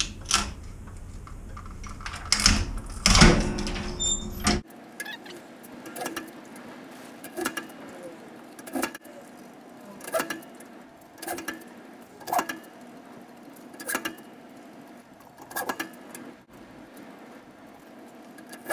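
Foot-pedal mitre guillotine cutting a wooden picture-frame moulding. Its heavy blade comes down on the wood with a sharp snap over and over, about once every second and a half, after a few louder knocks in the first seconds.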